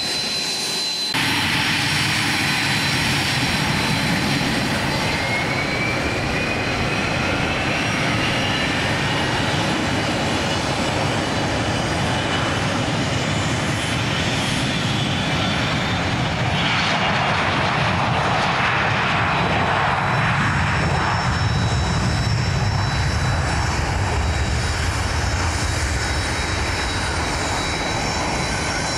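Gulfstream G550 business jet's twin Rolls-Royce BR710 turbofans running with a steady high whine; a few seconds in, a tone rises in pitch. From just past halfway, a heavier, deeper rushing noise builds under the whine as the engines spool up toward takeoff power.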